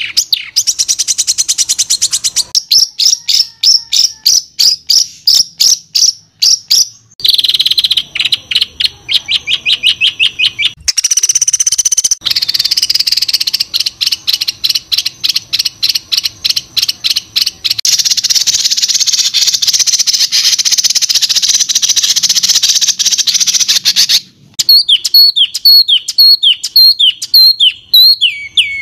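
Songbird song made of harsh, rapid strings of sharp repeated high notes, the 'tembakan kasar' material used in a masteran to train caged songbirds. It switches abruptly from phrase to phrase as if spliced. A dense buzzy trill comes in from about 18 to 24 seconds, and repeated falling notes come near the end.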